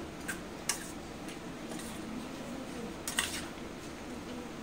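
Metal spoon stirring and tossing a chopped sprout salad in a stainless steel bowl, with a few clinks of the spoon against the bowl's side.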